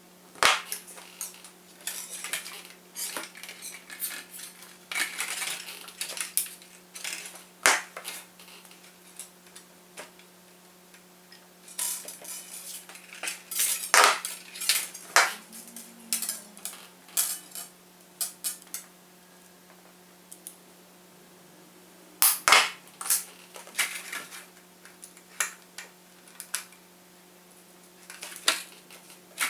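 Small hard plastic and metal parts being handled while fitting a servo pushrod: irregular clicks, clinks and short scrapes, some in quick clusters, over a steady low hum.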